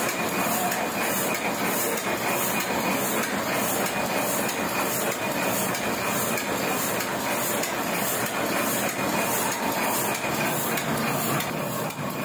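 Small sheet-fed offset printing press running, a steady mechanical clatter with an even beat about twice a second as it cycles through sheets.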